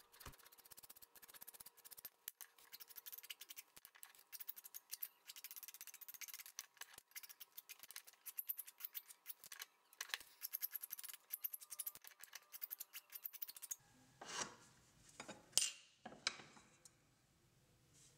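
Hand file rasping across the edges of a small wooden plane crosspin in rapid short strokes, beveling and rounding over its tips. The fast filing stops about 14 seconds in, followed by three or four louder separate scrapes.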